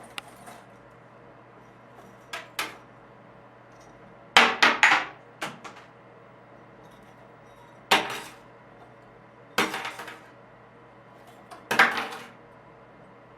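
Sharp clattering knocks of hard objects striking a hard surface, with a slight ring. They come in short groups: two light knocks, a loud rapid flurry, then single knocks or short clusters every couple of seconds.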